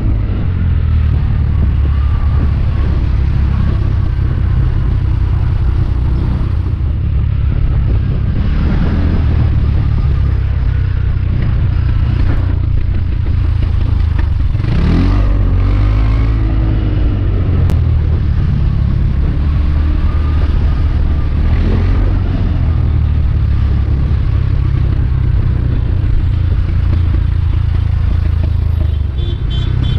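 Motorbike riding at speed: the engine runs steadily under a heavy low rumble of wind on the microphone. About halfway through there is a brief swell that rises and falls in pitch.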